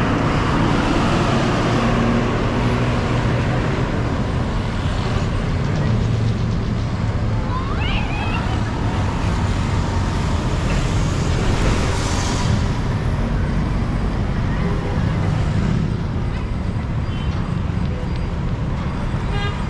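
Steady city road traffic: the continuous noise and low engine hum of passing vehicles.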